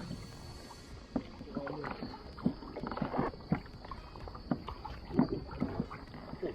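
Irregular knocks and taps aboard a fishing kayak, roughly one or two a second, over a low steady background noise.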